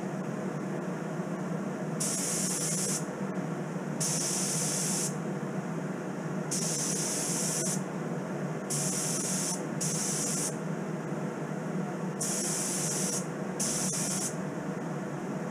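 Compressed-air spray gun spraying Cerakote in seven short trigger bursts, each a hiss lasting about half a second to a second, with short gaps between them. A steady low drone runs underneath.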